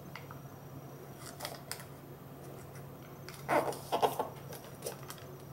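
Sheet of origami paper rustling and crinkling as fingers fold it over and press the crease flat, in a few short scrapes, the loudest a cluster about three and a half to four seconds in.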